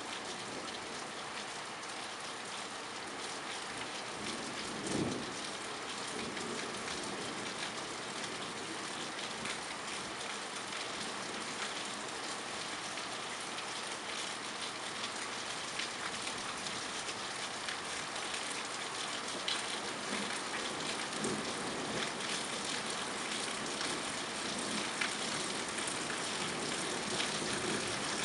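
Steady heavy rain falling on hard surfaces during a thunderstorm, with many close drop hits. A short low thump comes about five seconds in.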